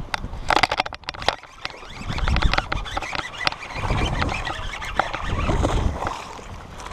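A baitcasting reel cranked in with a run of sharp clicks and splashing, while a bass hooked on a topwater frog thrashes at the surface. Gusts of wind rumble on the microphone now and then.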